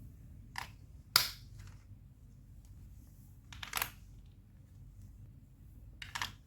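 Lego Duplo plastic bricks clicking as they are pressed together and set in place: a few separate sharp clicks a second or more apart, the loudest about a second in, some in quick pairs.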